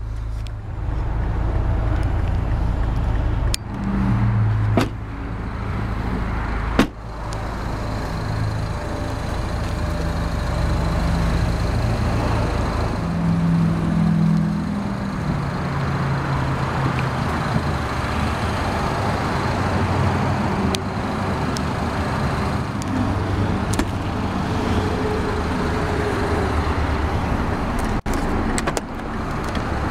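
Steady rumble of road traffic outdoors, with a few sharp knocks in the first seven seconds.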